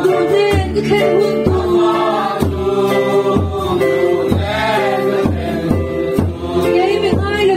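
A group of voices singing a hymn together in unison, with a steady low drum beat about once a second.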